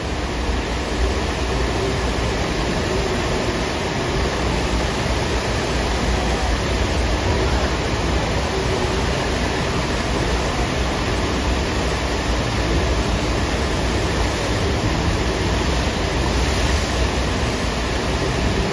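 Steady rush of water from a FlowRider surf simulator, its pumps sending a thin sheet of water racing up the ride surface.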